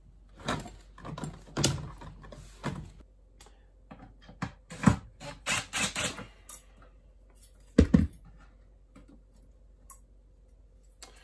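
Clicks and knocks from the drawer and its metal ball-bearing slides being handled, then a few short bursts of a cordless DeWalt driver with a square bit, backing out the screws that hold the old slide to the drawer side. There is a sharp knock about eight seconds in.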